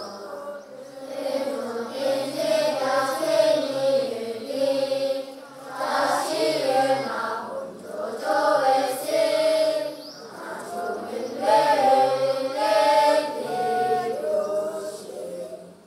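A large group of schoolchildren chanting a morning prayer together in unison, in phrases of a few seconds with short breaks for breath between them. It fades out right at the end.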